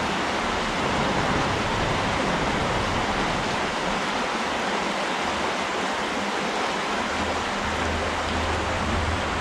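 Creek water rushing steadily over a shallow riffle, an even, unbroken hiss.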